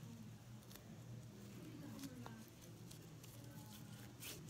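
Near silence, with faint soft clicks and squishes of glitter slime being stretched and pressed between fingers close to the microphone.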